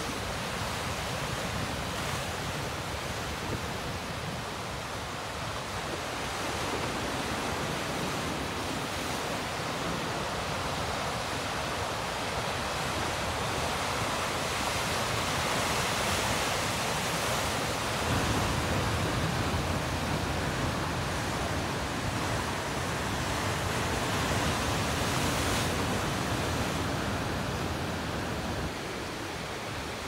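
Ocean waves breaking and washing over rock ledges: a steady rush of surf and foam, swelling louder in the middle and easing off near the end.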